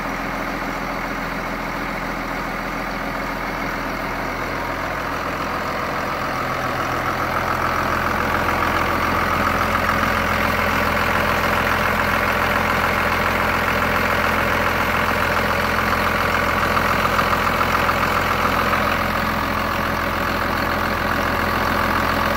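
Case IH tractor diesel engine idling steadily, growing somewhat louder about seven seconds in.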